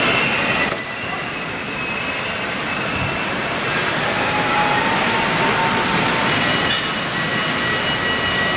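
H0-scale model trains running on a layout, their running noise over a steady background noise. A set of steady high tones joins about six seconds in.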